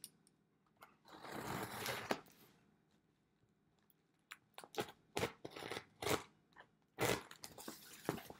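Scissors cutting open a cardboard box: a long scraping rasp about a second in, then a run of short, sharp snips and scrapes.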